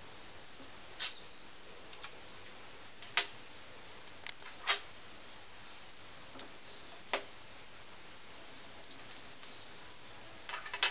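A small screwdriver and tiny metal and plastic parts of a 1:50 scale model excavator boom clicking and tapping sharply now and then, about ten times at irregular intervals, with a short run of clicks near the end. A faint steady hiss lies beneath.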